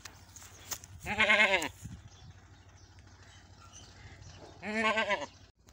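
Goat bleating twice, about three and a half seconds apart, each a short quavering call.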